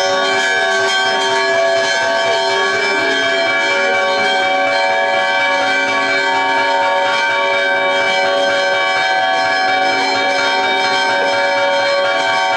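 Church bells ringing in a continuous peal, many bell tones overlapping and holding steady.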